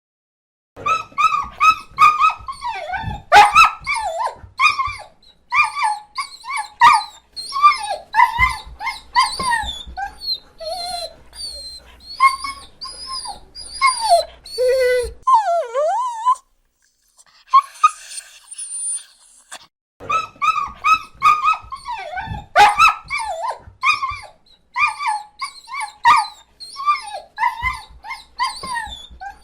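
A dog whimpering and whining: a long string of short, high whines, many sliding in pitch, with a short pause a little past halfway.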